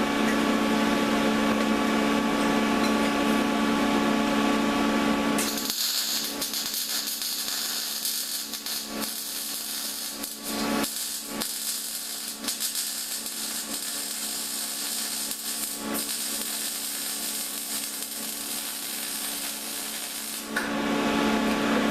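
MIG welding arc crackling steadily for about fifteen seconds, starting about six seconds in and cutting off shortly before the end, as a weld bead is laid. Before it, a steady machine hum.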